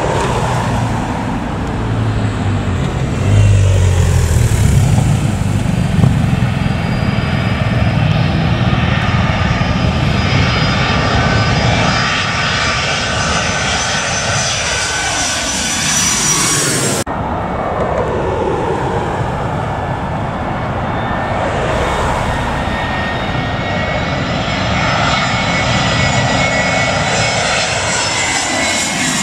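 Twin-engine jet airliners on final approach passing low overhead: a loud, steady engine rumble with a high fan whine that slides down in pitch as each jet goes over. A little past halfway the sound cuts abruptly to a second jet, whose whine also falls as it passes.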